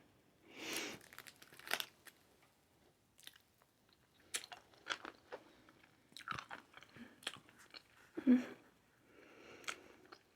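Close-up chewing and mouth sounds of someone eating a soft, caramel-like durian candy: scattered wet clicks and smacks, with a louder mouth noise about eight seconds in.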